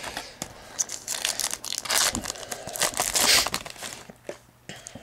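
Foil wrapper of a 2010 Topps Unrivaled football card pack being crinkled and torn open, in irregular rustling bursts that are loudest about two seconds and three and a half seconds in.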